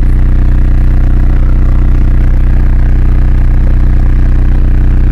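Sundown subwoofers in a 1994 Ford Explorer playing a sustained deep bass tone at very high volume, steady in pitch with a fast buzzing pulse through it.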